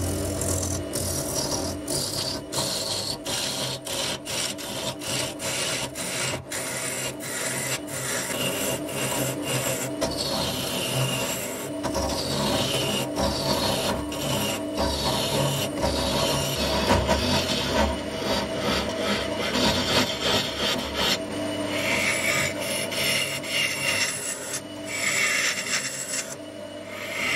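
Wood lathe running while a gouge cuts across the face of a spinning wood blank: a steady motor hum under the rasping hiss of the cut, with several falling tones as the gouge sweeps across the face. The cut eases off briefly near the end.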